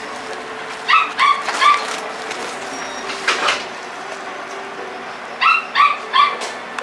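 Tabby-and-white cat giving short, sharp yowls of displeasure: three quick ones about a second in, a longer one in the middle, and three more near the end. The cat is angry and in a bad mood.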